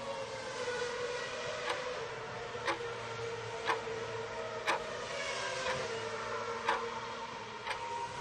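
Countdown-timer tick sound effect, one sharp tick each second, over a steady background drone with a held tone.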